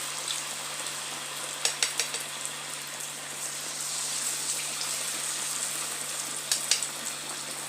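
Batter-coated potato slices frying in hot oil in a wok: a steady sizzling hiss, with a few sharp clicks about two seconds in and again near the end.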